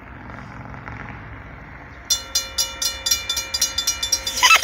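Railroad crossing signal activating about two seconds in: the crossing bell starts ringing rapidly, about four strikes a second, over the low rumble of a slowly approaching train. A brief falling sound comes near the end.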